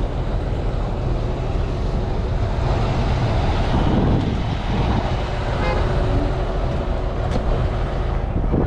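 Semi truck's diesel engine running steadily with a low rumble, and a faint steady tone joining about halfway through.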